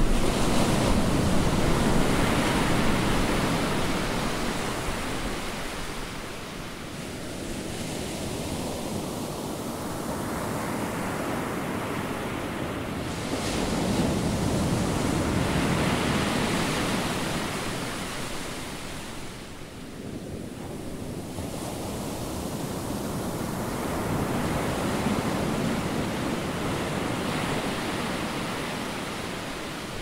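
Ocean surf: waves breaking and washing up a beach, swelling and ebbing in slow surges about ten seconds apart.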